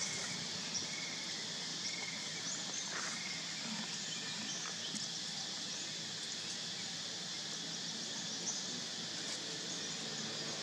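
Steady outdoor drone of insects, with a few faint, short high chirps scattered through it.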